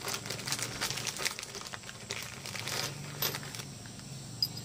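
Clear plastic zip-lock bag crinkling as hands dig through it, the small stainless steel speargun trigger parts inside shifting and clinking. The crinkling is busiest for the first three seconds or so and eases off near the end, with one short bright clink.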